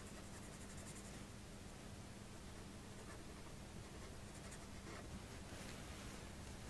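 Coloured pencil scratching faintly on drawing paper in short, repeated shading strokes.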